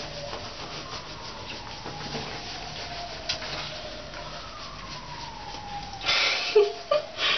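A towel rubbing a wet cat's fur, under long, slowly falling wails that start again higher every few seconds. Two short, loud, rasping bursts come near the end.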